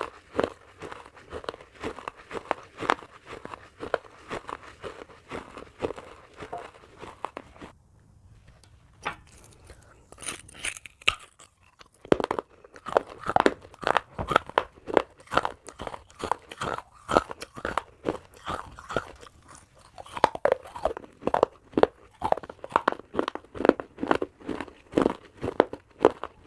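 Close-up chewing of baked clay pot pieces: a rapid run of crisp crunches. It thins out for a few seconds in the middle, with a few sharp cracks, then dense crunching resumes.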